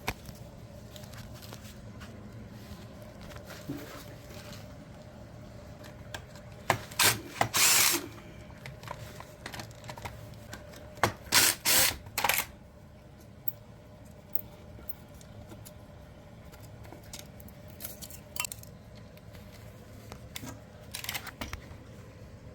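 A handheld power driver works the motor's wiring screws in a few short bursts while the wires are disconnected, with clicks and knocks of tool handling between them, over a steady low hum.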